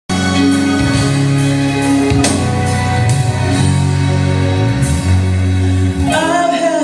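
A gospel song's instrumental opening starting suddenly, with held keyboard-like chords and bass notes; a singing voice comes in near the end.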